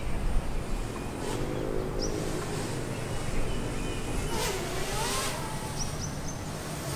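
Quadcopter camera drone hovering close by: a steady buzzing hum over a low rumble.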